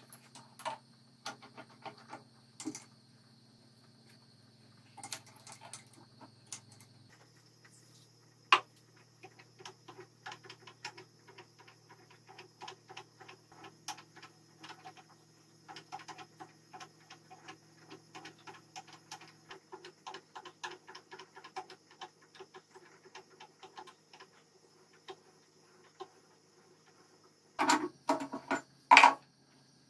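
Rapid light metallic clicking as a drill press's drill chuck is turned by hand around a bit, then a few loud metal knocks near the end as the machine vise is worked to clamp the steel rod.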